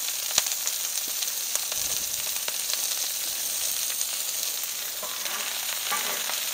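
Cubed andouille sausage and diced peppers sizzling in oil on a flat-top griddle at medium-low heat: a steady hiss with small crackles.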